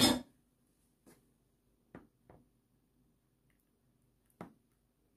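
A short knock at the start, then a few faint clicks and taps of kitchenware being handled while thick custard is poured into dessert glasses; the pouring itself is barely heard.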